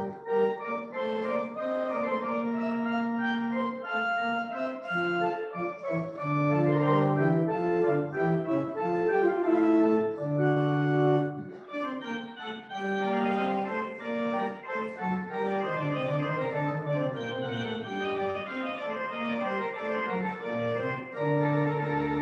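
Pipe organ playing a piece in full sustained chords over held pedal bass notes, with a short break between phrases about twelve seconds in.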